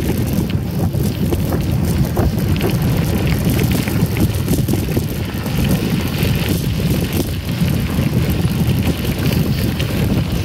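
Wind buffeting the microphone and the rumble of a moving mountain bike's tyres on the trail, with frequent small rattles and clicks from the bike.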